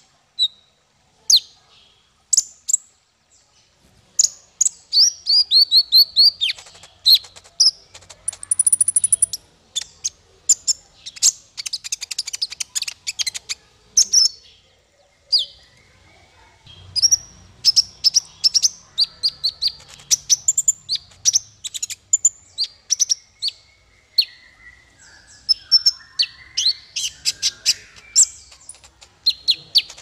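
Male kolibri ninja (van Hasselt's sunbird) singing: rapid strings of short, high-pitched chirps and trills, broken by a few brief pauses.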